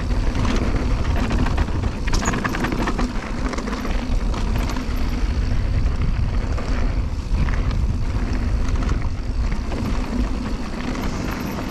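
Electric mountain bike riding down a rough downhill trail: wind rushing on the microphone with a steady low rumble, and scattered knocks and rattles from the bike going over bumps.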